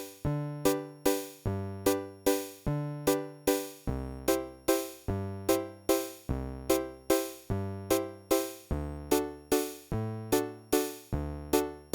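Yamaha Portasound 2 playing its auto bass chord accompaniment with the built-in rhythm box, likely the waltz pattern. A bass note changes about every 1.2 s, and short decaying organ-like chord stabs and clicky drum-machine hits fall on each beat, about every 0.4 s.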